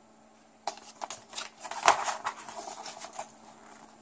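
Rustling and crackling of a model kit's glossy paper instruction manual being handled and opened, a quick run of crisp handling noises, the loudest about two seconds in.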